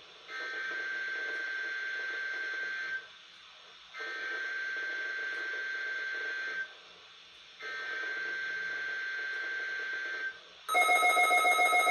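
NOAA Weather Radio SAME header for a Required Weekly Test: three bursts of warbling digital data tones, each about three seconds long with about a second's pause between them. About a second before the end, several weather radios start their own alert beeps together, a pulsing chord of tones.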